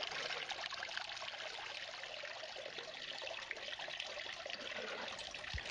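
Steady trickle of water running through a small homemade drop riffle sluice whose riffles are packed with unclassified rock. There is a soft thump near the end.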